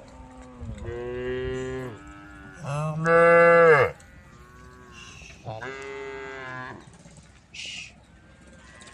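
Cows mooing: three long moos a second or so apart, the middle one the loudest.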